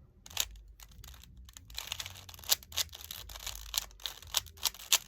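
Plastic Rubik's Cube being twisted by hand, its layers turning in a quick, irregular run of clicks and clacks.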